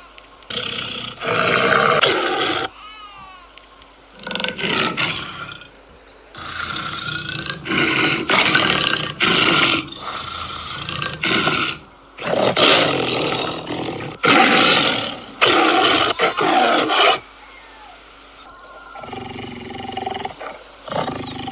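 Tiger roaring again and again: a run of loud, rough roars, each under a second or so long, with short pauses between them and a longer lull near the end.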